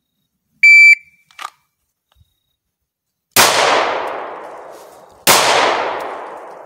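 A shot timer's electronic beep lasting about a third of a second, then two pistol shots about two seconds apart, each followed by a long fading tail.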